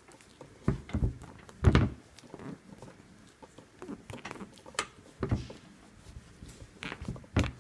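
Irregular knocks and rubbing from hands working a fid and paracord strand through a stiff rope core, with one louder thump nearly two seconds in.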